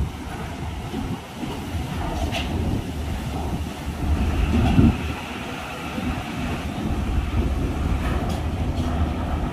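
Mitsubishi truck's diesel engine running low as the truck rolls slowly off a ferry's bow ramp onto the steel dock ramp, with a rail-like rumble and clatter from the steel under its wheels. The sound swells for a moment about halfway through.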